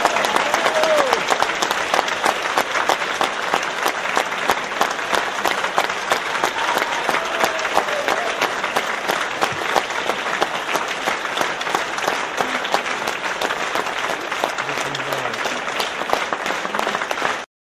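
Theatre audience applauding steadily after a ballet pas de deux, with a few voices calling out from the crowd about a second in and again around seven seconds in. The applause cuts off abruptly near the end.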